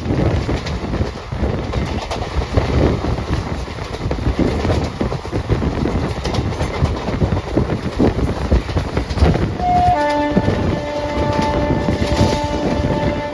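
Indian Railways train running at speed, with a steady rumble and wheel clatter over the rails. About ten seconds in, a short note sounds, then the train horn blows one long chord of several notes.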